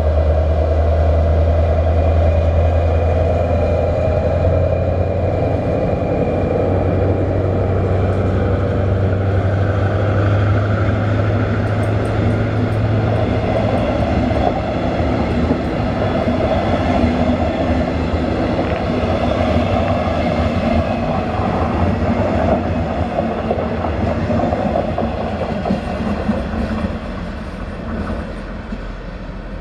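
Siemens ER20 (class 223) diesel-electric locomotive running under power with a deep steady engine hum as it hauls a passenger train past. After about fourteen seconds the hum gives way to the coaches' wheels rolling on the rails, and the sound fades near the end as the train draws away.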